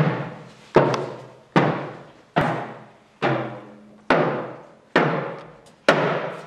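A deep drum struck slowly and evenly, about one beat every second, each beat ringing and dying away; eight beats, the last fading out near the end.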